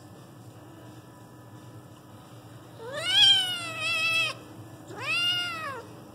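Young kitten meowing twice, held down while its broken leg is splinted: a long cry about three seconds in that rises and wavers, then a shorter one that rises and falls away near the end.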